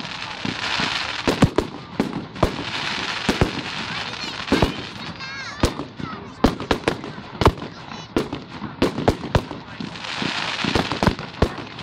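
Fireworks display: a long irregular string of sharp bangs and cracks from bursting shells, many in quick succession, over spells of steady hiss.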